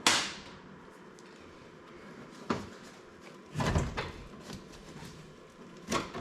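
Four sharp clicks and knocks of metal and plastic parts being worked loose on a car door's interior trim and handle: one near the start, one about two and a half seconds in, a rattly knock around four seconds in, and one near the end.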